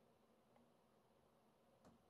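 Near silence: room tone with a faint low hum, and one faint click near the end.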